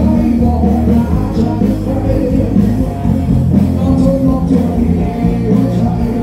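Rock music with singing, loud and continuous, with a strong bass.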